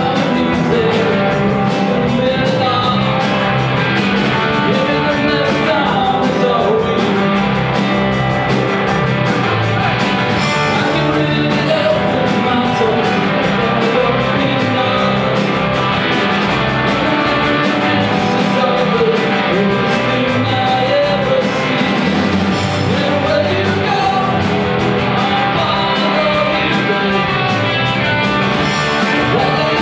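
A live rock-and-roll band playing a song, with guitar and singing over a steady beat.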